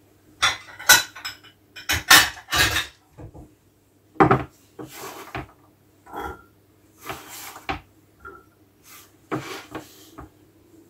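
Kitchen clatter of dishes and utensils: a string of knocks, clinks and short scrapes as a bowl is handled and diced carrots are moved into it from a wooden cutting board. The loudest knocks fall in the first three seconds and again about four seconds in.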